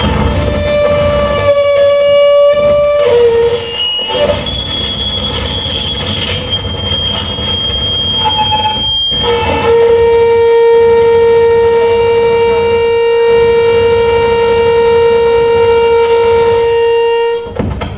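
Loud live harsh noise music from electronics: dense distorted noise under held pitched tones. A long steady droning tone enters about ten seconds in and cuts off suddenly near the end.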